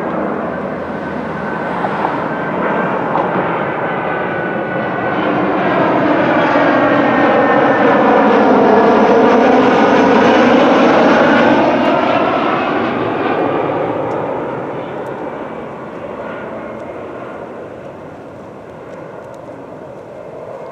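Jet airliner passing overhead: its engine rush swells to its loudest about halfway through with a sweeping whoosh, then fades away.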